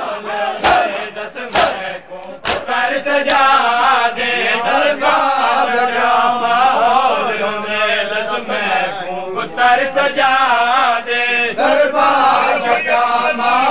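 A group of men chanting a noha together, with sharp rhythmic strikes of matam, hands beating on chests, about one a second for the first few seconds.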